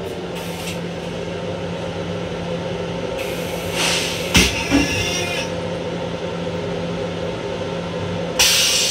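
MTA Long Island Rail Road M7 electric railcar running, a steady drone heard inside its small restroom. A short hiss with a sharp clunk comes about four seconds in, and another hiss starts near the end.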